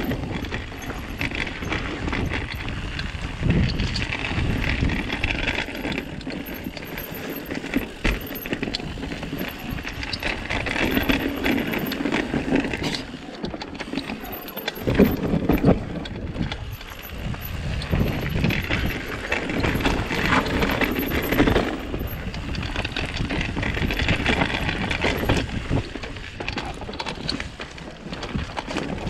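Full-suspension mountain bike ridden fast down a rough dirt singletrack: tyres rumbling over dirt and roots, with frequent irregular knocks and rattles from the bike on the bumps.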